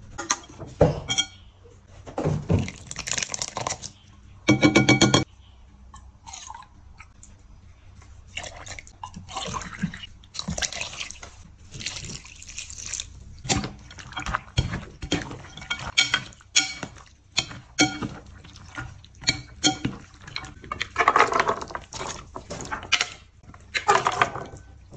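Freeze-dried cat food cubes rattling and clicking in a glass mixing bowl as liquid is poured over them, then a metal spoon stirring and scraping the cubes against the glass. A brief loud pitched sound cuts in about five seconds in.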